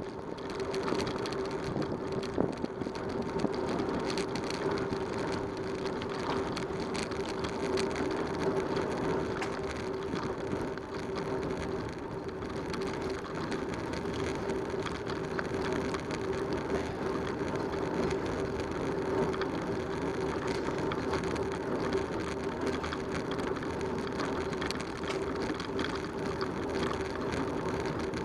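Bicycle riding on a paved road: steady tyre and road noise with a constant crackly rattle, over a steady hum.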